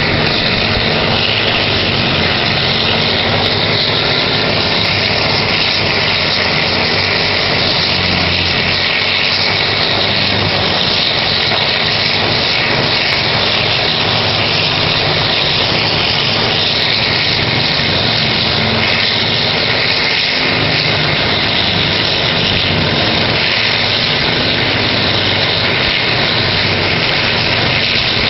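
Horizontal wood grinder and excavator running, a loud, steady heavy diesel engine drone mixed with dense machine noise that holds even throughout.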